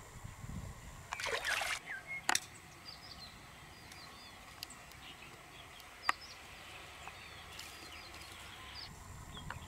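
River water sloshing and trickling, with a splash about a second in and two sharp clicks.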